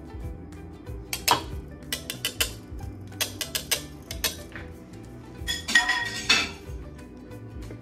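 Wire whisk beating eggs in a ceramic bowl, its wires clinking against the bowl in quick irregular bursts. About six seconds in comes a louder, ringing clatter.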